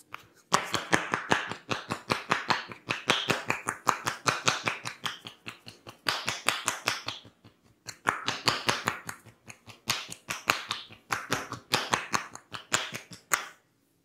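Rapid percussive hand tapping of Indian head-massage tapotement: palms held together with loose fingers chopping on the neck and shoulders, so the fingers clap against each other at every stroke. It comes in long quick runs, with a brief pause a little past halfway, and stops just before the end.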